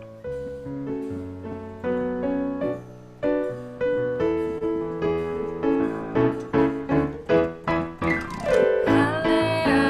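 Piano music: notes and chords struck one after another, growing louder, with a quick downward run of notes about eight seconds in.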